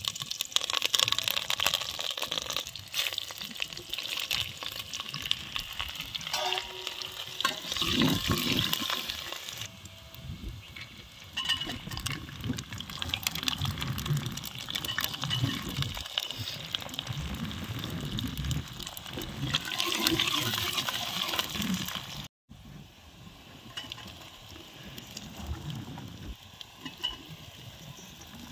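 Whole spices, garlic and chopped onion sizzling in hot oil in an aluminium pot, with a steel ladle scraping and clinking against the pot as they are stirred. The sizzle is loudest in the first ten seconds and again around twenty seconds, then drops after a sudden break a little past twenty-two seconds.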